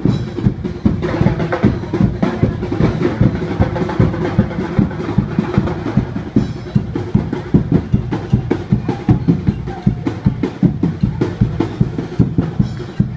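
Fast percussion music: rapid, steady drumbeats with a rolling, driving rhythm.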